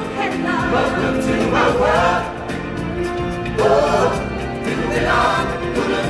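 Singers on handheld microphones leading a song with a choir of voices over amplified backing music, the sung phrases swelling and falling every second or two.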